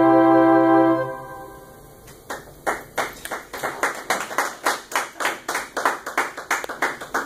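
An electronic-keyboard ensemble holds its final chord, which is released about a second in and fades away. From about two seconds in, a small group claps, with separate claps audible.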